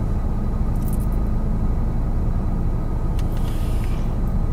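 Steady low hum inside a car's cabin, with the engine idling and the air conditioning running, and a few faint light rustles about one and three and a half seconds in.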